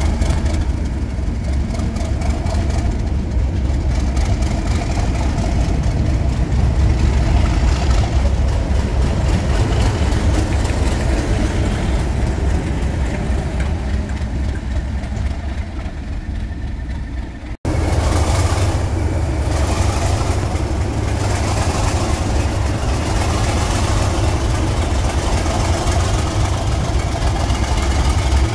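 Class 37 diesel locomotives' English Electric V12 engines running with a steady deep rumble. A momentary dropout a little past halfway breaks the sound, then the rumble carries on.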